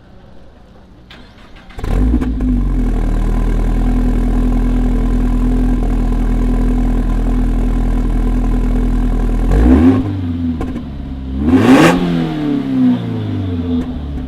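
Toyota GR86's flat-four boxer engine starting up about two seconds in and settling into a steady idle through the exhaust. Near the end it is revved twice, the second rev higher, each falling back to idle.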